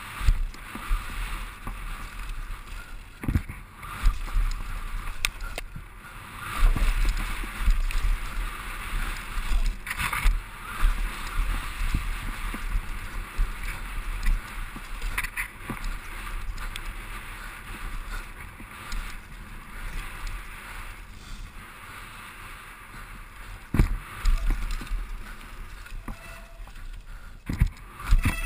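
Mountain bike descending a dirt trail, heard from the rider's helmet: a steady rush of tyres and wind, with a low rumble on the microphone. The bike gives sharp knocks and rattles over bumps every few seconds.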